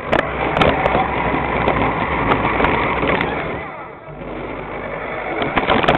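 Large radio-controlled truck running, a steady mechanical noise of motor and wheels that eases off about four seconds in and then builds again.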